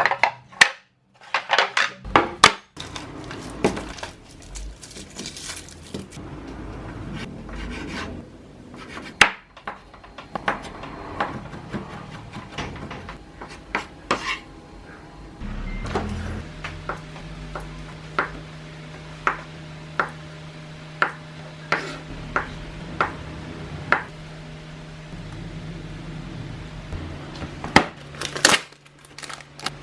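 Kitchen prep sounds: knocks and clatter of utensils, dishes and a knife on a wooden board, with a run of evenly spaced knocks like chopping in the second half. A low steady hum comes in about halfway through.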